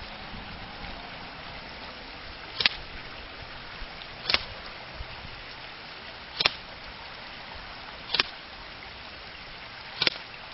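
JG M4 Commando (M733) airsoft electric gun firing single shots, five sharp pops about two seconds apart, over a steady background hiss.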